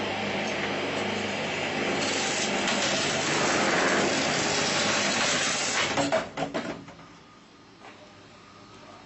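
Electric coconut-cutting machine running for about six seconds, a low motor hum under a loud, even cutting noise as it works through a young coconut's husk. It stops abruptly and is followed by a few sharp knocks as the coconut is handled in the machine.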